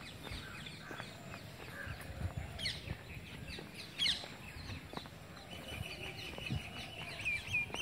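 Several birds chirping, with quick downward-sweeping calls and, near the end, a fast run of repeated chirps. Soft footsteps sound underneath.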